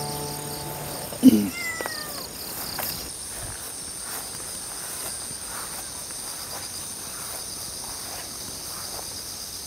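Crickets and other insects chirping steadily in a high, pulsing chorus. A strummed acoustic guitar chord dies away at the start, and a short loud sound cuts in about a second in.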